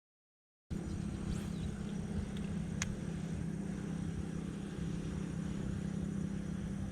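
Total silence for a moment, then a steady engine drone with a constant low hum, unchanging in pitch or level, and a single faint click about three seconds in.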